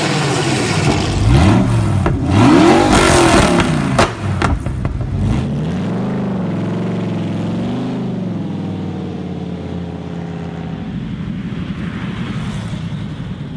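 Millyard Viper V10's 8-litre Dodge Viper V10 engine revving, its pitch rising and falling in several blips over the first five seconds, then running with a wavering, steadier note that slowly fades as the bike rides away.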